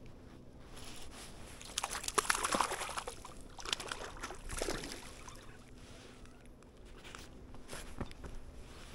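Water sloshing and splashing in short, irregular bursts, loudest about two seconds in and again near five seconds.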